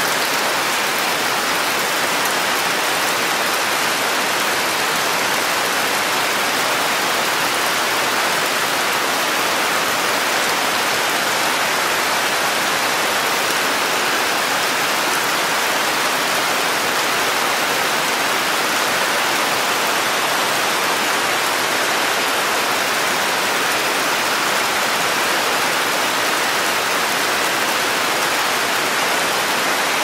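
Steady rain falling on rainforest foliage: an even, unbroken hiss with no let-up.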